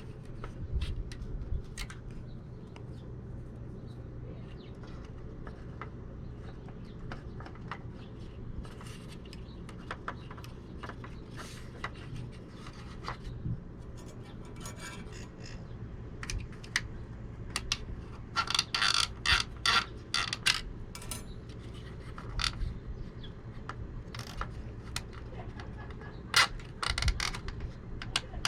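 Hands fitting 12V fans with zip ties behind an RV refrigerator: scattered plastic clicks, taps and scrapes. About two-thirds of the way through comes a burst of rapid ratcheting clicks, zip ties being pulled tight. A steady low hum runs underneath.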